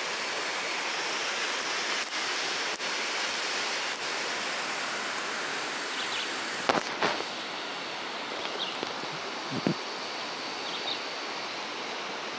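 Steady rush of stream water running over rocks into a river pool. A few short knocks come about halfway through, and a faint, steady high-pitched tone sounds through much of the second half.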